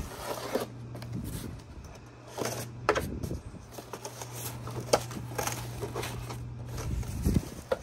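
A knife slitting the packing tape on a cardboard box, then the cardboard flaps being pulled open, in a string of short scrapes, rips and rustles. A faint steady low hum runs underneath.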